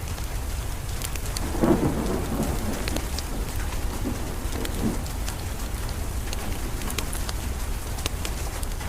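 Steady rain with a roll of thunder about one and a half seconds in that rumbles on and fades out by about five seconds. Scattered sharp pops from a crackling wood fire run through it.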